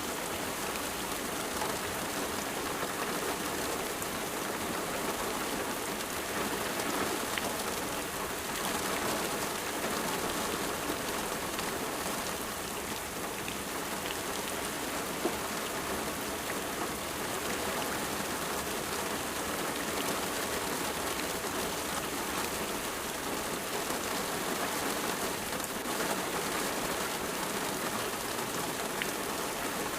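Steady rain falling on a surface, a dense even patter with occasional individual drops ticking out, unchanging throughout.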